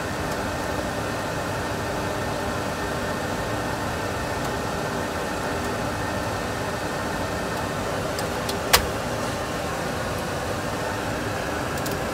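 Steady engine and airflow noise in a Boeing 737 Classic full flight simulator cockpit during the climb after flap retraction, with one sharp click about two-thirds of the way through.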